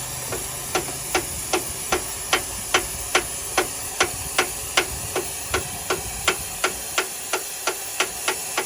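Hammer striking metal in a steady rhythm, about two and a half blows a second, each blow ringing briefly, over a steady hiss.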